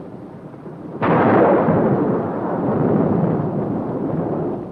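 Thunderclap: a sudden crack about a second in, followed by a long rolling rumble that slowly fades.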